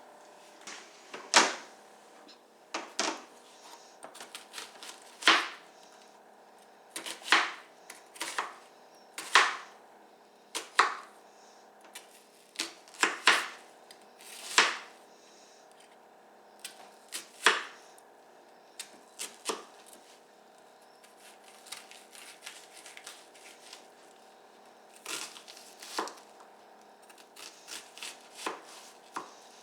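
Knife chopping red onion on a cutting board: irregular sharp knocks, one or two a second with some quick runs, over a faint steady hum.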